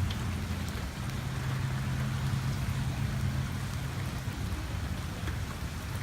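Steady rain falling during a thunderstorm, with a steady low hum underneath.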